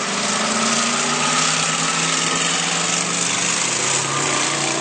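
Car engine running with a steady drone that wavers slightly in pitch, under a loud hiss.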